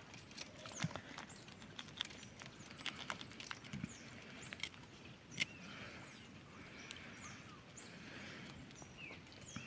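Small scratchy clicks of a serrated knife scraping and cutting a small lambari as it is cleaned by hand, with a few faint high chirps in the background.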